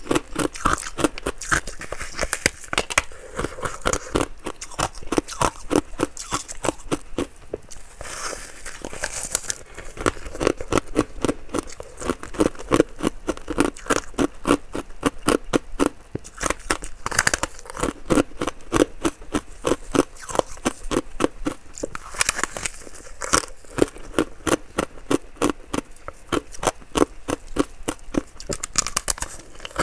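Ice being bitten and chewed close to the microphone: a steady run of crisp, crackling crunches, several a second.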